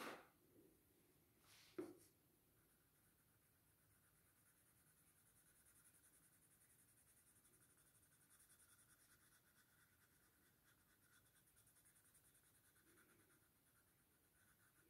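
Very faint graphite pencil shading on paper, a soft steady scratching, with a brief small tap about two seconds in.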